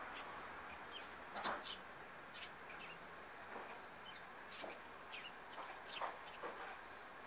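Eurasian tree sparrows chirping: scattered short, high chirps, the loudest about a second and a half in, over a faint steady background hiss.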